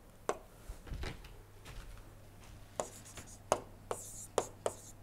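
Stylus tapping and scratching on a tablet screen during handwriting: a series of light sharp taps, spaced out at first and coming a few a second from about three seconds in, with a brief faint scratch near the end.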